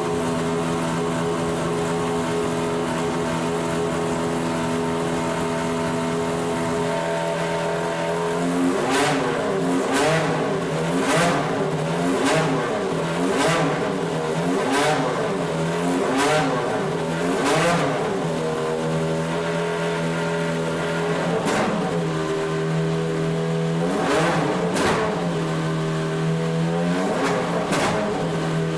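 Naturally aspirated 3.4-litre V8 of a Zytek 04S LMP1 prototype running at a steady idle, then blipped sharply and repeatedly, about once a second for some ten seconds. It drops back to idle, with a few more single blips near the end.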